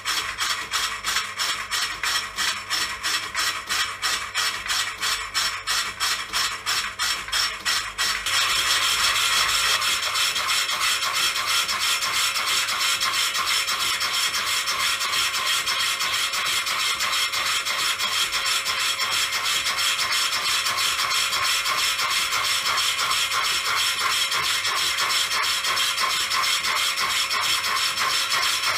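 Cutting tool scraping round the inside of a motorcycle brake drum that is turning under power on the milling machine, taking off the rust. It comes in even pulses, about four a second, for the first eight seconds or so, then turns into a steadier, continuous scrape.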